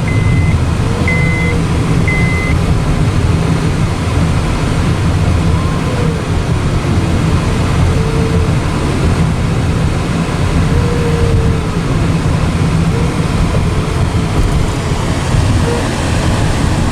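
Steady low road and engine rumble heard from inside a moving car. Near the start, a run of short, high electronic beeps sounds five times, about twice a second.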